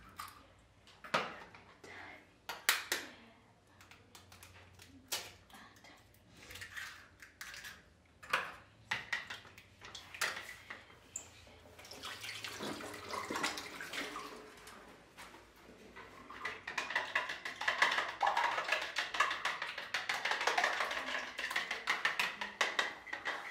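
Eggs being cracked, with separate knocks of a metal spoon against the shells over a plastic bowl. About halfway through this turns into rapid, steady clicking and sloshing as the eggs are beaten with a metal utensil in the bowl, loudest near the end.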